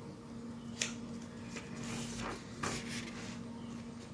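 Paper rustling as a notebook page is turned and pressed flat by hand: a few short rustles, about a second in and twice more past the halfway point, over a low steady hum.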